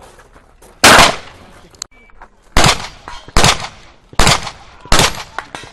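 Five shotgun shots, each with a short ringing tail. The first comes about a second in, and the last four follow less than a second apart.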